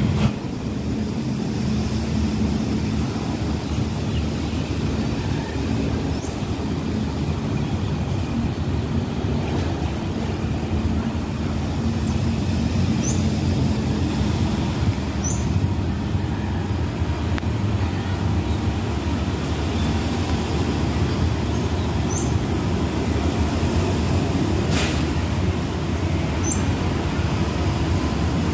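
Diesel locomotive engine running with a steady low rumble, heard at a distance.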